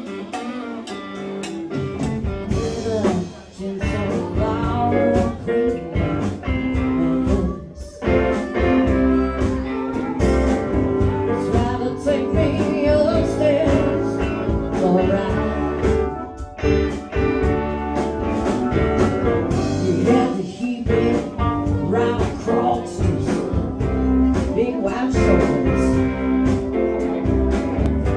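Live blues band playing, with electric guitars, bass, keyboard and drums and a woman singing; the full band with bass and drums kicks in about two seconds in.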